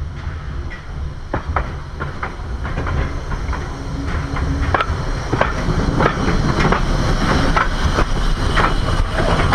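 Steam locomotive and its tender rolling toward the microphone and past it: the wheels click irregularly on the rails over a low rumble. It grows louder, with the clicks coming thicker in the second half.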